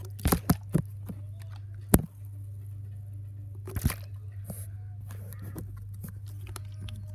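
A half-empty plastic water bottle knocking and thudding as it is flipped, lands and falls over on its side onto a cushioned seat, with handling knocks as it is picked up. The sharpest knock comes about two seconds in, and a steady low hum runs underneath.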